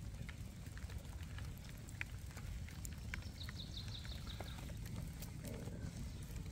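Cooking fire crackling and popping in irregular small clicks over a low steady rumble. A bird gives a quick run of high chirps about three and a half seconds in.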